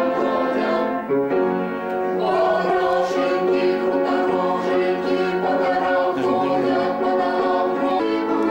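Music of sustained held notes sounding together as chords, the chord changing every second or several.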